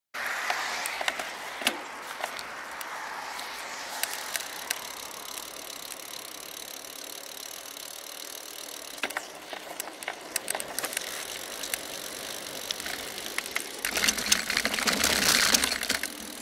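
Road and wind noise of a bicycle riding along, picked up by a bike-mounted rear camera, with frequent sharp rattling clicks from the bike and mount. The noise swells louder about three seconds before the end.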